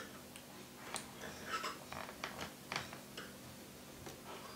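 Scattered small clicks and ticks of a screwdriver and screws on the plastic bottom case of an IBM ThinkPad laptop as screws are driven back in, about ten irregular ticks.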